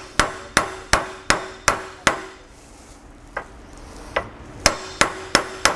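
Hammer tapping a steel axle spider-gear pin used as a drift, driving a new universal-joint bearing cap into the driveshaft yoke until the snap-ring groove shows. Sharp metal-on-metal taps, each with a short ring: a quick run of about three a second, two single taps, then another quick run.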